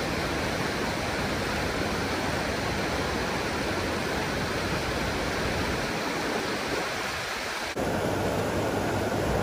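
Fast-moving muddy flash-flood water rushing over a road, a steady rush of water. The sound shifts abruptly near the end to the churning of the flood's standing waves.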